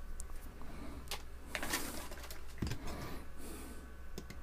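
Light clicks and rustling from hands handling a hair straightener's opened plastic housing and multimeter test probes, with a brief scratchy patch about a second and a half in.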